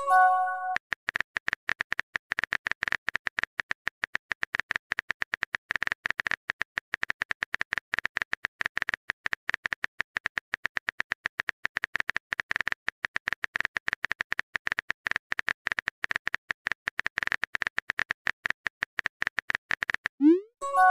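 A fast, irregular run of phone-keyboard typing clicks, a chat-app sound effect. A short message chime sounds at the start, and a rising pop and the same chime come again near the end.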